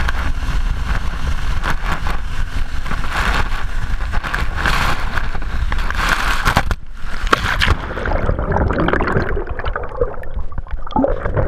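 Water rushing and spraying hard onto the microphone as a barefoot skier is towed across the wake. About seven seconds in the skier goes into the water and the sound turns muffled and gurgling underwater.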